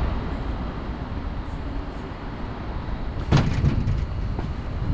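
Steady road-vehicle rumble and noise, with a brief louder burst a little over three seconds in.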